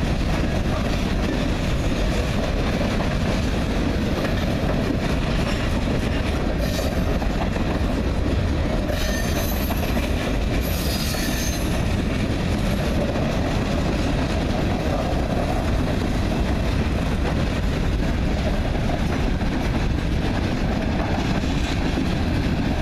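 Freight train's covered hopper cars rolling past, a steady rumble and clatter of steel wheels on the rails, with three short high screeches of wheel squeal about seven, nine and eleven seconds in.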